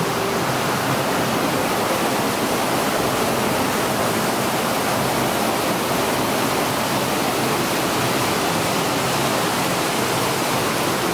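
Waterfall running loudly and steadily: an even, unbroken hiss of falling water.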